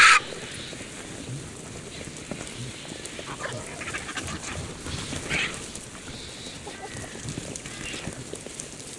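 Griffon vultures squabbling at a carcass: scattered short, harsh calls, busiest around the middle as the birds lunge at each other with wings spread. A loud, harsh call is cut short right at the start.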